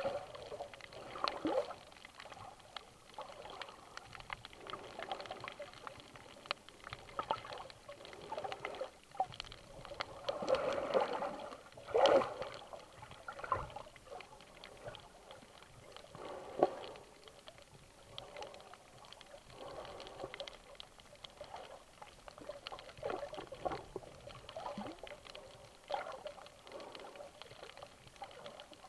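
Water sloshing and bubbling, heard from under the water: an irregular, muffled run of gurgles and splashes, with the loudest burst about twelve seconds in.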